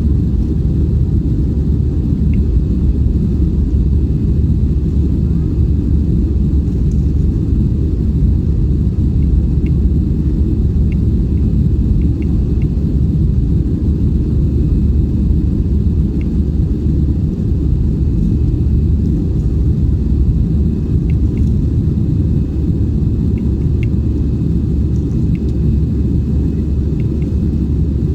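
Steady low rumble of engine and airflow noise inside an Airbus A320 cabin in flight, with a few faint, scattered ticks.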